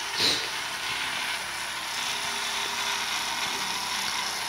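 Kato HO scale SD40-2 model diesel locomotive running along sectional track with a train of log cars: a steady mechanical whirring and rattling of the motor and wheels. A brief louder noise comes just after the start.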